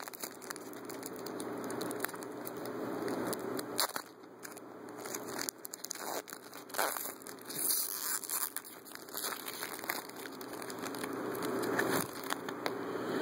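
Trading card pack being opened and handled: the wrapper crinkling and crackling in an irregular run of rustles and small clicks, with some tearing.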